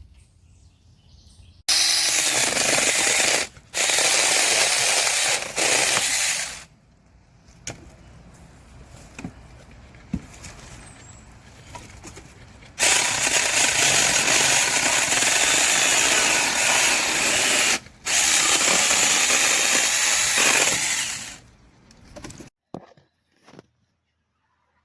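Battery-powered 6-inch mini chainsaw's electric motor running in four bursts of a few seconds each, with quieter pauses between.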